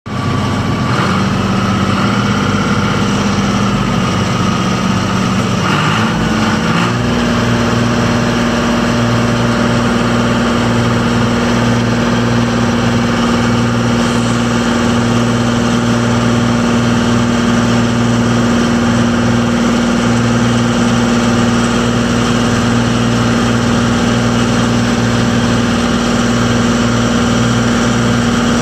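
Long 2360 tractor's 45 hp Uzina diesel engine running steadily, its speed picking up slightly about six or seven seconds in and then holding.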